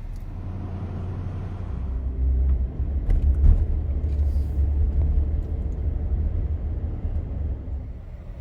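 A car driving, a low steady rumble of engine and road noise that grows louder about two seconds in, with a few light knocks.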